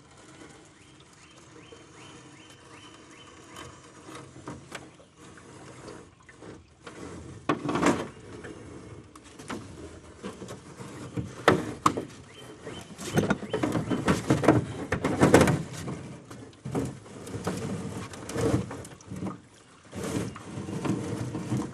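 Hoop net being hauled by hand over the side of a metal boat. It is quiet for the first several seconds, then irregular knocks and rattles of rope, netting and hoops against the boat come with splashes of water.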